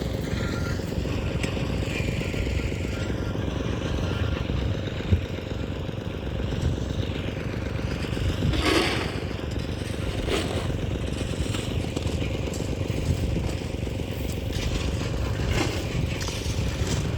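Motor vehicle engine running steadily, with road noise and a few faint passing sounds partway through.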